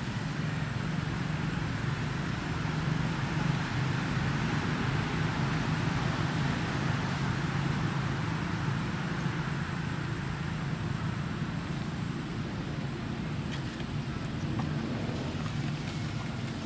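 Steady low rumble with an even hiss over it, unbroken throughout, and a faint thin high tone above.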